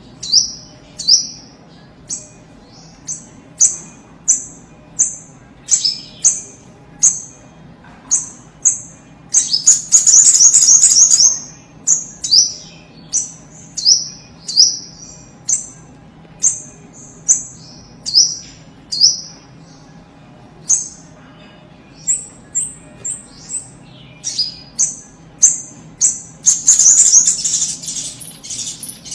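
A sogon (sunbird) calling over and over: short, sharp, high chips that each drop quickly in pitch, spaced about every half second, broken twice by a rapid, louder chattering run. It is a lure call used to get a newly caught sunbird to start singing.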